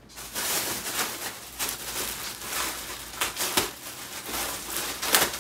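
Clear plastic bag rustling and crinkling as it is handled, with a few sharper crackles, the loudest near the end.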